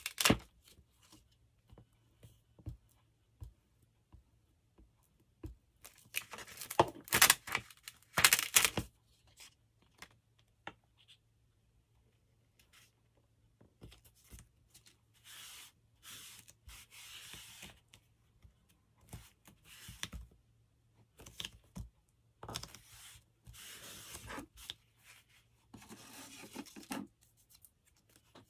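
Paper scraps being torn and handled: a few loud rips about six to nine seconds in, then softer rustling of paper with scattered light taps.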